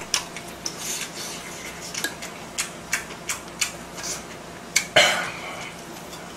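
Utensils clinking against dishes while eating: a string of light, irregular clicks and taps, with a louder clatter about five seconds in.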